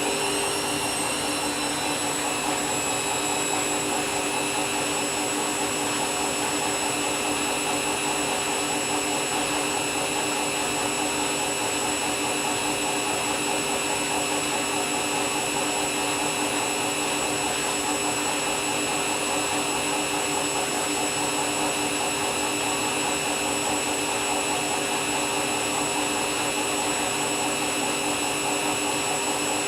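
Candy washing machine spinning its empty drum at speed, the motor giving a steady high-pitched whine of several tones over a whooshing hum. The tones finish climbing and settle within the first couple of seconds as the drum reaches spin speed.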